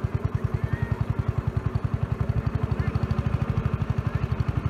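Small single-cylinder engine chugging at a steady speed, with an even beat of about nine to ten firing pulses a second.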